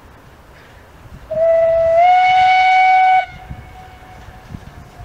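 Steam locomotive whistle giving one blast about two seconds long, its pitch stepping up slightly just after it opens, then cutting off sharply.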